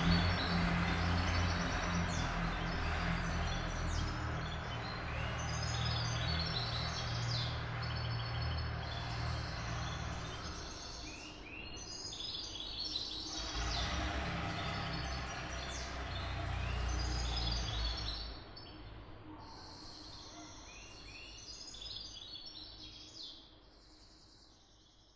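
Diesel truck engine rumbling as it moves away after passing, fading and swelling again before dropping off about 18 seconds in. Birds chirp and tweet throughout and are left alone once the engine is gone, before the whole recording fades out at the end.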